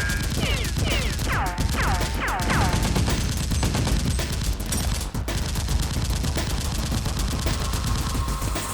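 Rapid gunfire sound effects in a shootout, with many shots in quick succession. Several falling whistling sounds come in the first three seconds.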